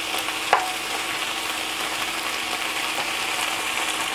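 Sliced eggplant and long beans sizzling steadily in a nonstick frying pan while a plastic spatula stirs and turns them, with one sharp click about half a second in.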